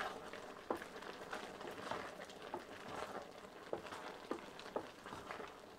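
Wooden spoon stirring diced apples cooking in a metal pot: irregular scrapes and knocks of the spoon against the pot, several a second, over a steady cooking hiss.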